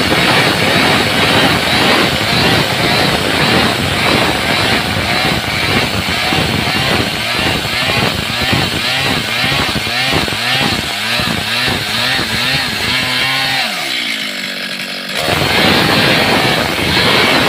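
Stihl chainsaw running hard while its chain cuts grooves into a wooden plank. Midway the engine pitch rises and falls over and over. About fourteen seconds in the pitch drops and the sound quiets briefly, then full revs return abruptly.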